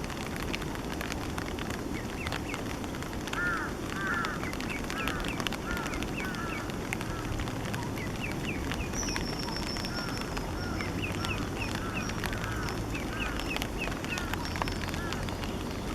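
Eastern spot-billed duck ducklings, partly grown, peeping: short peeps that rise and fall in pitch, often in quick twos and threes, repeated in loose bursts over steady low background noise.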